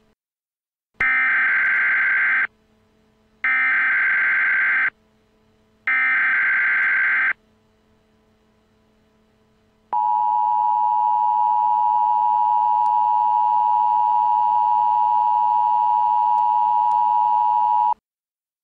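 Emergency Alert System signal: three identical bursts of warbling digital data tones (the SAME header), each about a second and a half, followed by the steady two-tone attention signal held for about eight seconds and cut off abruptly, announcing an emergency message.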